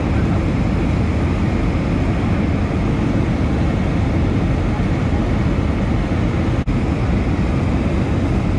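Steady cabin noise of an airliner descending to land: jet engine and airflow rumble heard from inside the passenger cabin, with a split-second break about six and a half seconds in.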